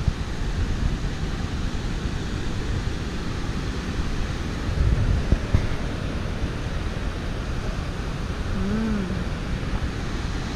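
Steady rush of the fast-flowing Baker River, with wind buffeting the microphone.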